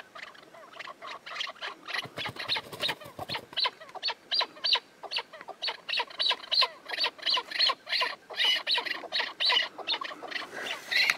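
Chukar partridge calling a fast run of short, clucking 'chuk' notes, about four a second, that grow louder after the first couple of seconds: the rally call that gives the keklik its name.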